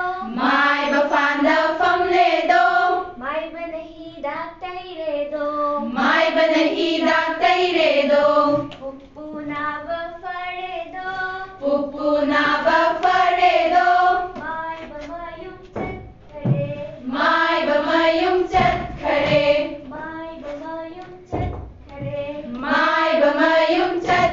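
A classroom group of young women singing a rhyme together in unison, line after line, with louder stretches coming back about every five to six seconds.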